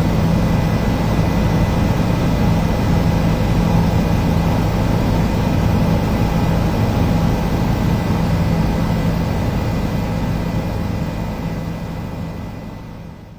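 Helicopter engine and rotor running with a steady drone, fading away over the last few seconds.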